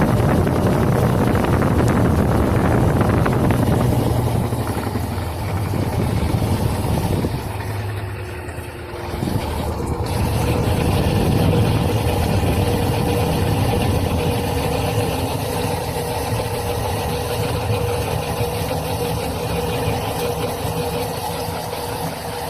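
Electrolux Turbo LTC10 10 kg washing machine running, its motor humming steadily, easing off briefly about eight seconds in and then picking up again with a steady whine.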